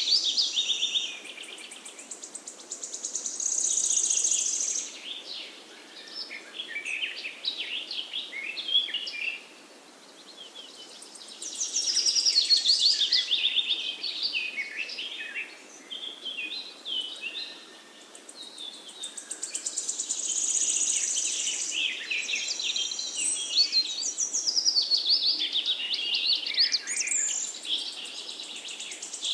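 Small songbirds singing: phrases of quick, high chirps and trills a few seconds long, with short pauses between them.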